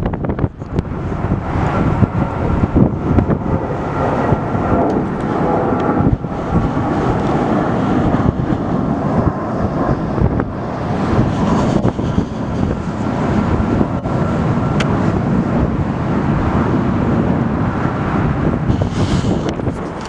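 Jet airliner engines running, a dense steady noise with a faint whine, mixed with gusty wind on the microphone.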